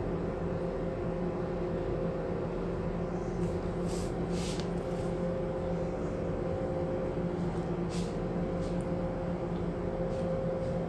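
Steady hum of a ship's machinery, holding a few constant tones, with faint clicks from the brake band and strap being handled about four and eight seconds in.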